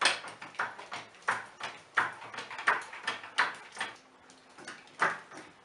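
A car jack being pumped, with a sharp metallic clank at each stroke about every 0.7 s, pausing about four seconds in before one more stroke.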